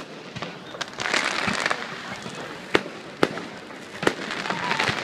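Fireworks going off: a handful of sharp bangs a second or so apart, with a spell of dense crackling about a second in.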